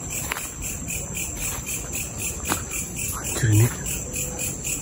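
Night insects, crickets, chirping steadily in rapid, even pulses, with a few faint snaps from the brush. A brief low sound stands out about three and a half seconds in.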